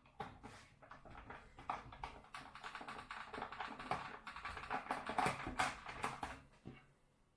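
Rapid, irregular clicking and tapping of hands and a tool working on the plastic front plate of a freezer fan assembly as it is secured down, stopping near the end.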